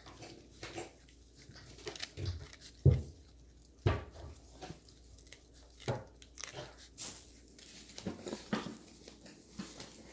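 Australian shepherd puppies chewing and scuffling at play, with irregular clicks and knocks and two louder thumps about three and four seconds in.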